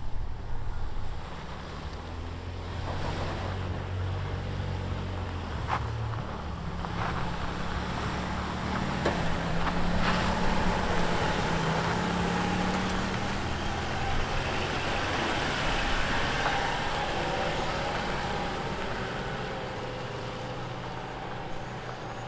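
Range Rover L322's V8 engine running under load as the SUV crawls over a rocky dirt trail, its note rising and falling with the throttle. A few sharp clicks and knocks of tyres on rock come in the first half.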